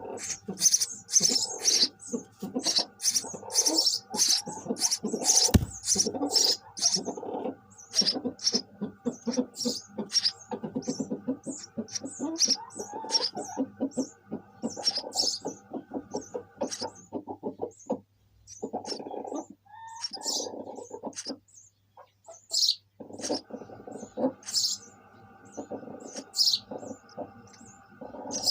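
Sparrows chirping in a busy run of short, sharp calls, with lower rapid calls beneath. There is a brief lull a little past two-thirds of the way through.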